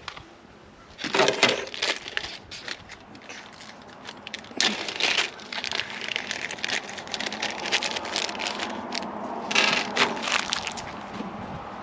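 Rustling and crackling from deer feeder parts being handled during assembly, in three louder bursts about a second, four and a half and ten seconds in.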